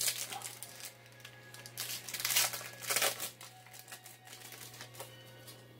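Shiny trading-card pack wrappers crinkling and rustling as packs are opened and handled, in a few short bursts, the loudest about two and three seconds in, over a steady low hum.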